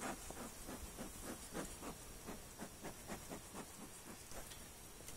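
Bee smoker's bellows being pumped, sending short puffs of smoke over the open hive's frames to calm the bees, about three puffs a second, stopping about four seconds in.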